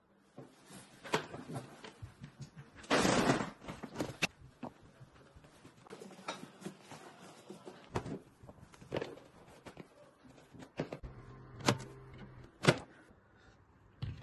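Scattered knocks, clicks and rustling from objects being handled, with a longer noisy scrape or rustle about three seconds in and two sharp knocks near the end.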